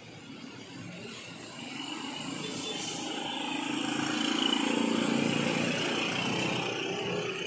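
A motor vehicle passing on the street: its engine and road noise swell over a few seconds, peak about halfway through, then ease off.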